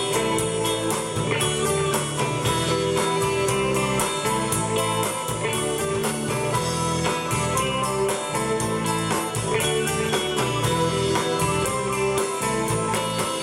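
Live rock band playing an instrumental passage of a song, guitar to the fore, over a steady drum beat.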